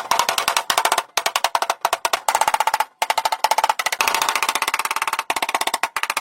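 Rapid metallic tapping, about a dozen sharp strikes a second with a ringing tone, in runs broken by short pauses.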